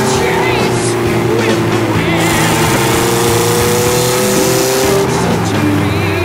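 Caterham 7 sports car driving at speed, its engine running steadily under wind and road noise in the open cockpit. Music plays over it.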